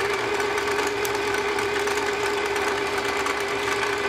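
Singer Stylist sewing machine running steadily at speed on its pedal, spinning a bobbin on the winder spindle as the bobbin fills with thread. A steady hum with one clear tone that holds level throughout.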